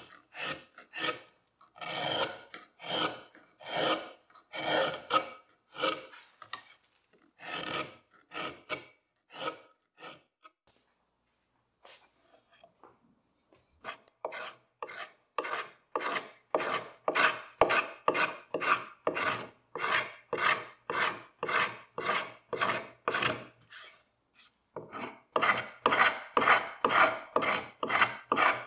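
Hand carving tool cutting into a walnut stool seat: a series of short scraping cuts, one or two a second. After a brief pause about ten seconds in, the cuts resume faster and louder, two or three a second.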